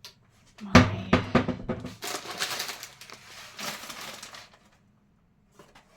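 Knocks and clatter of items handled in a kitchen cabinet, the loudest just under a second in, followed by two stretches of rubbing noise about a second each.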